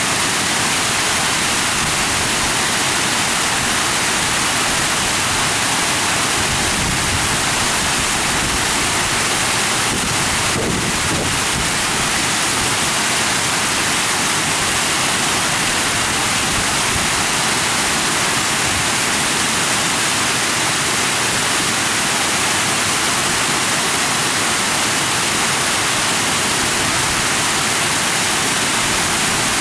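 Water spray falling onto a pond's surface, making a steady, even rushing splash.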